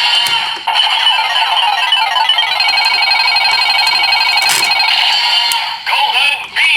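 Electronic slot-roulette music playing through the DX Fever Slot Raise Buckle toy's small speaker, made of fast repeating jingly tones. There are a couple of sharp clicks, and a warbling sound effect near the end.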